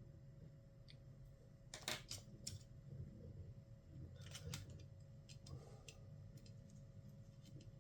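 Faint clicks and taps of small tools and parts being handled on a laptop during disassembly: a few sharp clicks about two seconds in, two more about halfway, then a few fainter ticks, over a low hum.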